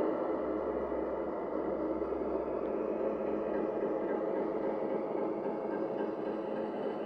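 O gauge Heljan class 60 model locomotive running steadily along the track, its motor, gears and wheels giving an even hum and rumble.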